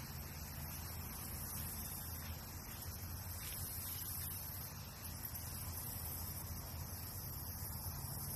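Steady outdoor background noise: an even high hiss over a low, constant hum, with no distinct events.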